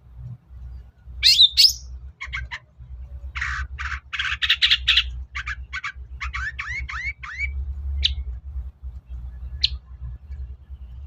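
Long-tailed shrike (cendet) singing a varied, chattering song. It opens with loud harsh calls about a second in, then runs into quick bursts of chatter and a rapid series of short rising notes, ending with a few single notes. A low hum runs underneath.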